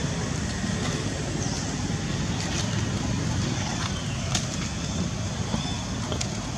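Steady outdoor background noise, a low rumble with a hiss over it, and a few faint clicks about two and a half and four seconds in.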